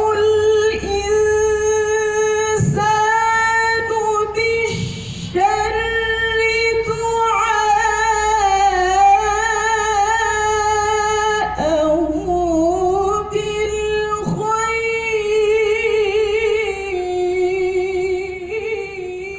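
A woman reciting the Quran in the melodic tilawah style, amplified over a loudspeaker system. Her high voice holds long notes with wavering ornamented turns. The line is broken by a few brief pauses and dips lower in pitch about two-thirds of the way through.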